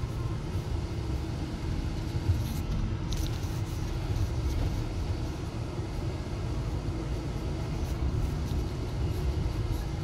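Low, steady rumble of a moving vehicle heard from inside its cabin: engine and road noise, with a few faint clicks about two to three seconds in.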